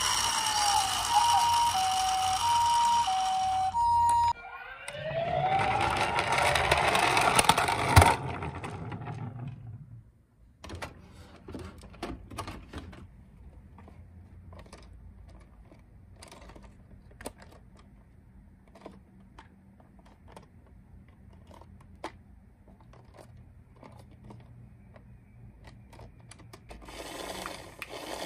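Toy ambulance electronic siren playing the two-note hi-lo ambulance pattern, alternating about once a second, for about four seconds. Then a siren sound rising in pitch cuts off abruptly about eight seconds in. After that come faint scattered clicks and taps, and a short buzzing noise starts near the end.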